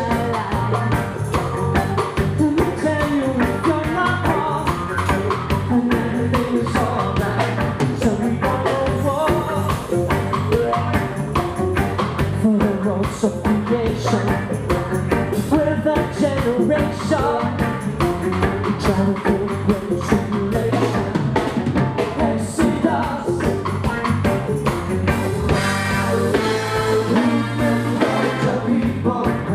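Background music: an upbeat rock song with a sung vocal and a steady drum-kit beat.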